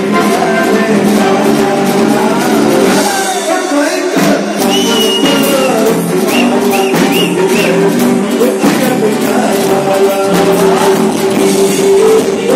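Live band playing a Bollywood song: a singer on microphone over electric guitar and drums.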